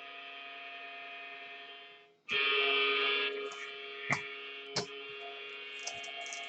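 Steady electrical hum with a brief dropout about two seconds in, followed by a few sharp clicks and light rustling of trading cards being handled.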